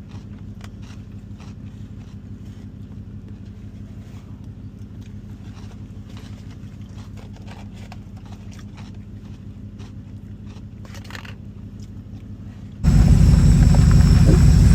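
1985 Oldsmobile Cutlass Supreme's engine idling steadily, with a few faint clicks. Near the end it jumps abruptly to a much louder low rumble.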